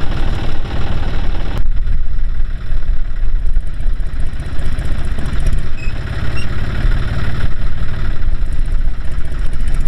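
John Deere tractor's diesel engine running steadily at low revs.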